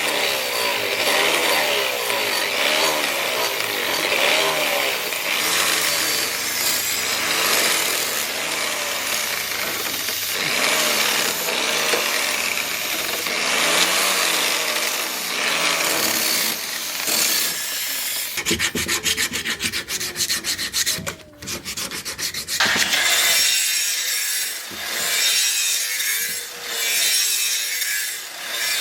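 A tool working wood with steady rubbing and rasping, breaking into a fast run of scraping ticks for a few seconds past the middle. Near the end come slower back-and-forth strokes about once a second, like sawing or filing.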